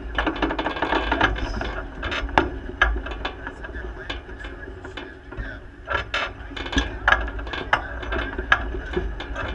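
Irregular mechanical clicks and clanks close to the microphone, starting with a quick run of ratchet-like clicking in the first second or so, then single clicks every second or so.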